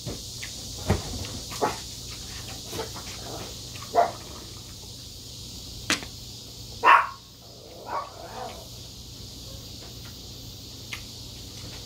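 A small Chihuahua barks once, sharply, about seven seconds in, with a softer bark about a second later. Light clicks of a spoon and chopsticks and chewing sound around it.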